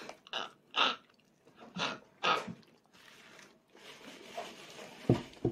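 A young child's short, noisy breaths while chewing a piece of fried chicken wing, four of them in the first two and a half seconds. A few soft knocks follow near the end.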